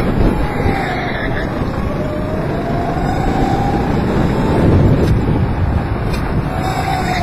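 Go-kart engine running under load as the kart laps, its pitch dipping and rising again through the corners, over a steady rush of wind and chassis noise.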